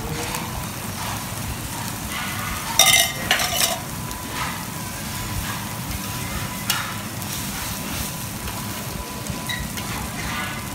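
Beaten egg sizzling on a hot flat iron griddle while a metal spatula scrapes and taps against the griddle, with a loud burst of metal clatter about three seconds in.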